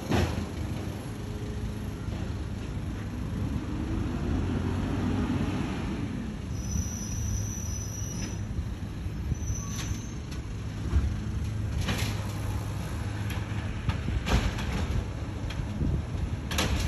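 Automated side-loader recycling truck running steadily, with a brief high squeal partway through and several sharp knocks in the second half as its arm works on a blue bin.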